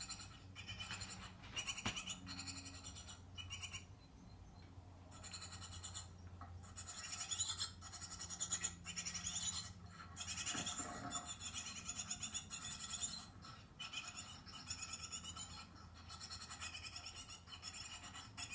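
Great tit nestlings calling in a nestbox, heard through a television's speaker: bursts of rapid, high-pitched chirping with short pauses between them.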